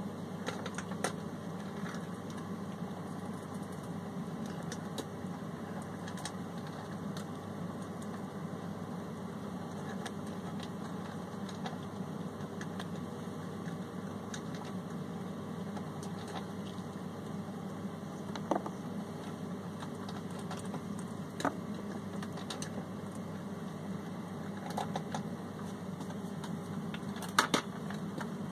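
Fingers handling a compost pupal cell of a rose chafer and breaking it open, giving scattered small clicks and crackles over a steady low background hum; a pair of sharper clicks comes near the end.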